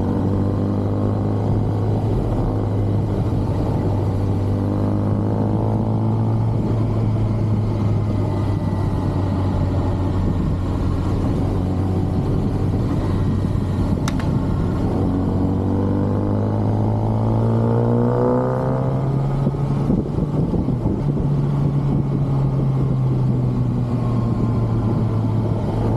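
Stock 2023 Kawasaki ZX-6R's inline-four engine running under way with its standard exhaust, holding a steady note, then rising in pitch from about 15 to 19 seconds in, with a brief dip near 20 seconds before settling to a steady, slightly higher note.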